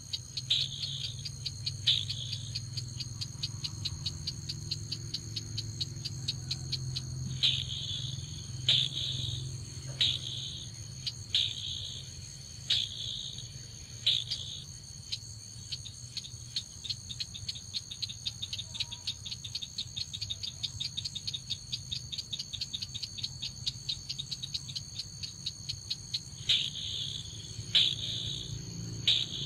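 Bird calls, most likely the crake the trap is set for: sharp clicking notes that repeat and at times run together into a fast series of ticks, with louder call bursts every second or two. A steady high insect-like whine and a low hum lie underneath.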